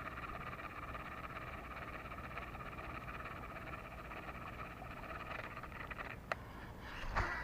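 Steady chorus of frogs calling in a flooded field, with a sharp click about six seconds in and another brief noise near the end.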